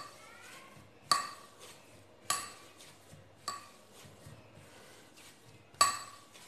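Dough being kneaded by hand on a marble rolling board, with a sharp clink and a short ringing tone at each push, five times at roughly one-second intervals.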